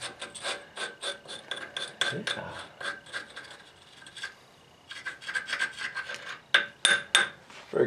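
Hand tool working on the steel axle parts: a quick run of short rasping metal strokes, several a second, that pauses briefly past the middle and comes back louder near the end.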